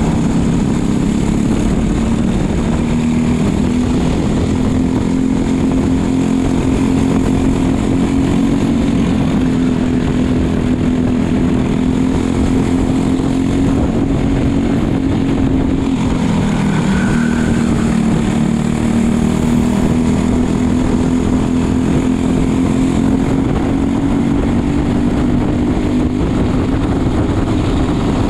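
Racing kart engine running hard at speed, heard from the driver's seat. Its pitch climbs slowly along the straights, dips briefly about two-thirds of the way through as the driver lifts for a corner, then climbs again, with wind rush over everything.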